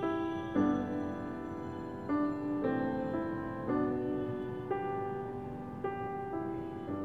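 Slow, soft piano background music: a melody of single notes and chords, each one struck and left to fade.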